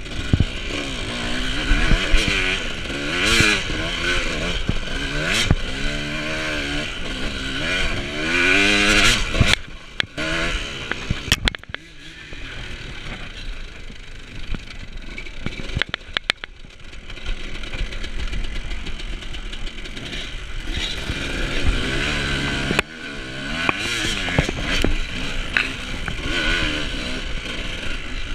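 Off-road dirt bike engine revving up and down under throttle, its pitch rising and falling again and again. Midway it runs lower and quieter with a few sharp knocks, then picks up again.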